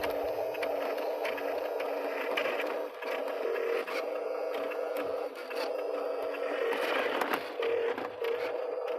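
Small electric motors of a radio-controlled excavator whining steadily, with scraping and frequent clicks as the model digs; a second, higher motor tone cuts in and out several times in the second half.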